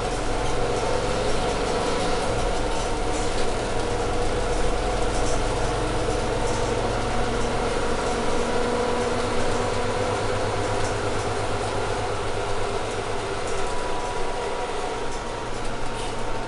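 Cabin noise of a Mercedes-Benz Citaro G articulated city bus as heard from a passenger seat: the diesel engine and drivetrain running with a steady low rumble and hum, with light rattles from the interior fittings.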